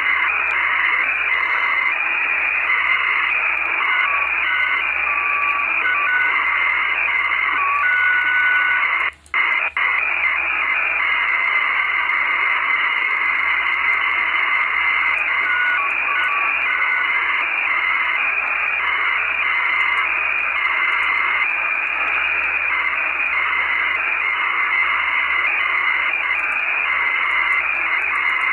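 Radio receiver static: a steady band of hiss, like an untuned channel, with faint whistling tones that come and go at different pitches. The signal cuts out briefly twice about nine seconds in.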